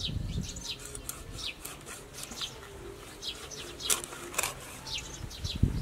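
Cleaver cutting fish steaks on a wooden chopping board, with dull knocks at the start and a louder one near the end. Birds chirp over it in quick, short falling notes.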